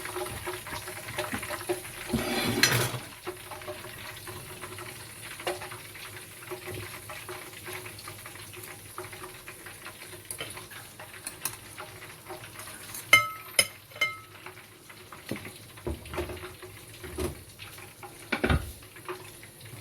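Kitchen handling noise: plates and utensils knocking and clinking, with a brief scraping rustle about two seconds in and a few sharp ringing clinks about two-thirds of the way through.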